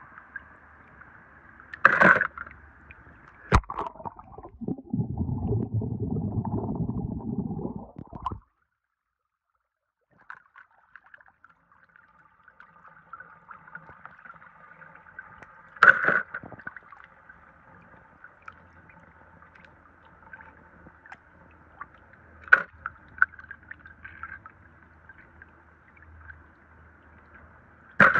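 Water gurgling and trickling through a swimming pool's overflow gutter, with a few sharp clacks of die-cast toy cars being handled. About five seconds in there are three seconds of heavier rumbling noise, then the sound cuts out for under two seconds.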